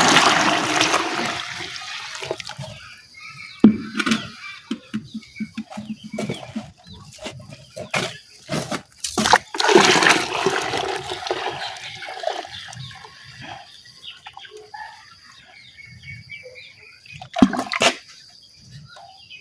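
Water sloshing and pouring as powdered charcoal and aloe vera are stirred into drinking water. The sloshing fades after the first couple of seconds and swells again about ten seconds in, with scattered knocks and clatter from the container in between.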